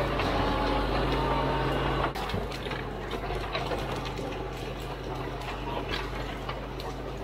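Caterpillar D4 crawler dozer working through gorse: a steady diesel engine note with a dense clatter and crackle of tracks and brush over it. The overall sound drops abruptly about two seconds in.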